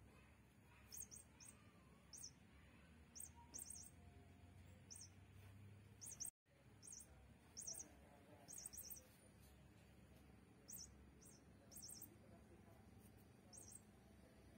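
Faint, short high chirps of a small bird, often in quick pairs, repeating irregularly about once a second over a low steady hum.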